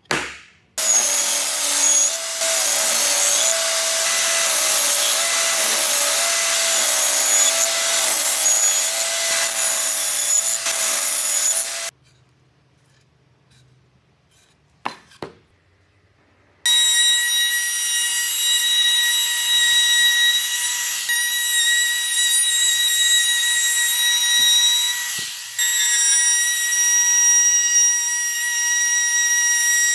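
A power tool cuts wood noisily, then stops, and after a short pause a couple of knocks sound. An electric plunge router then starts and runs with a steady high whine as its bit cuts the edge of a wooden panel.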